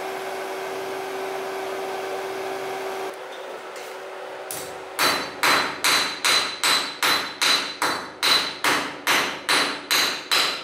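A forge blower runs steadily with a low hum, then stops about three seconds in. From about five seconds in, a hammer strikes an iron bar held in tongs on an anvil, about two ringing blows a second.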